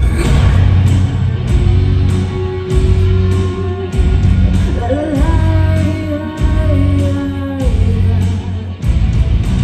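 Loud rock music with a singer over a heavy, pulsing bass beat. The singer holds one long note through the middle.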